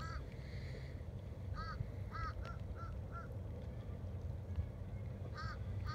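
A bird calling in short notes that rise and fall in pitch: one near the start, a quick run of about five between one and a half and three seconds in, and another near the end, over a steady low rumble.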